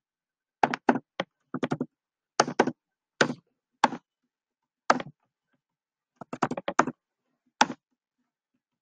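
Computer keyboard keystrokes: single clacks and short quick runs of a few keys, irregularly spaced, with the densest run a little over six seconds in.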